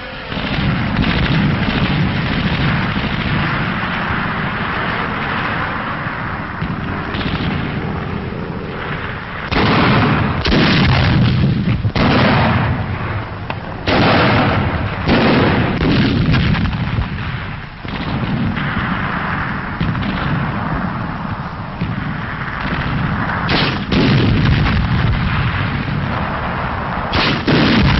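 Battle sound on an old newsreel soundtrack: gunfire and explosions. A continuous rumble fills the first nine seconds or so, then a series of sharp bangs comes from about ten seconds in, in two clusters.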